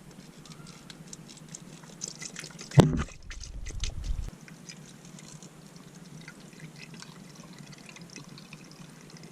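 Coolant being poured from a cut-down water bottle into a car radiator, a faint trickle and drip filling it toward the top. A single thump about three seconds in is the loudest sound, followed by a brief low rumble.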